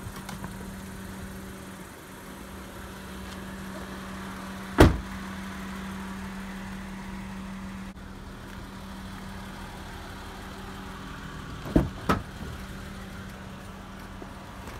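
2015 Honda Pilot's V6 engine idling steadily, with a car door slamming shut about five seconds in and two sharp clicks of the door latch being worked about twelve seconds in.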